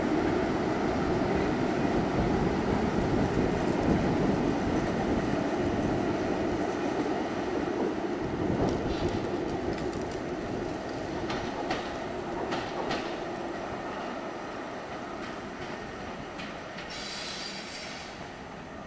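EWS Class 90 electric locomotive passing: a steady rumble of wheels on rails that fades as it draws away. A few sharp clicks come in the middle as the wheels cross rail joints or points, and a brief high squeal sounds near the end.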